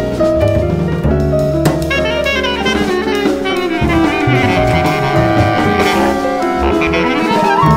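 Bass clarinet playing a solo line over a jazz-style ensemble with drum kit and low bass notes.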